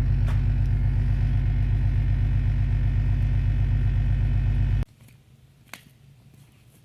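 Vehicle engine running steadily, a loud low drone that cuts off abruptly about five seconds in, followed by faint background with a single small click.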